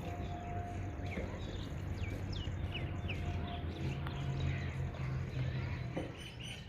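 Birds chirping in an aviary: a handful of short, quickly falling high chirps around the middle, over a steady low background hum.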